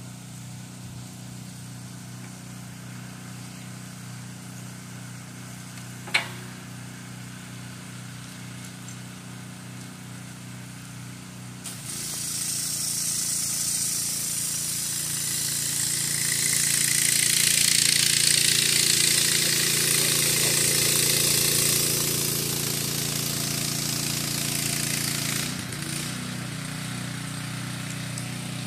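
A steady low mechanical hum with one sharp click about six seconds in. About twelve seconds in, a pressure-washer wand starts spraying water, a loud hiss over the hum that eases off again near the end.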